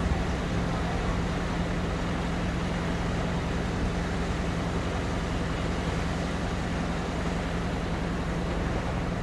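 Boat engine running steadily, a constant low drone with an even rushing noise over it.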